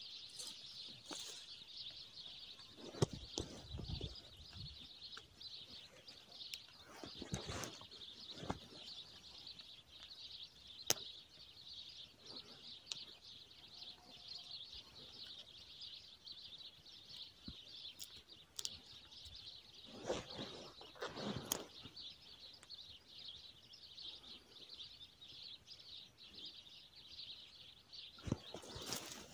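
Dry wormwood stems being handled, snapped and split with a knife: faint scattered crackles and rustles, a few louder clusters of snaps, over a steady faint high-pitched hiss.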